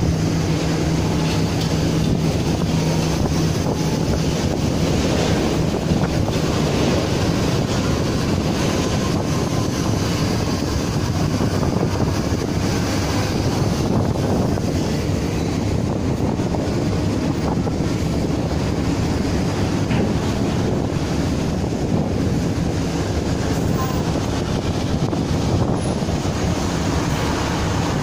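Wind buffeting the microphone over a steady low rumble of heavy-vehicle engines. A low hum holds for the first three seconds, then fades into the rumble.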